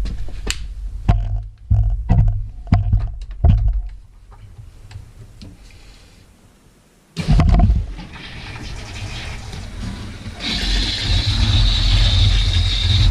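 Knocks and clicks of handling with a low rumble, then a sudden thump about seven seconds in; from about ten seconds in a steady hiss of water rushing, the shower starting to run as the cold water is turned on.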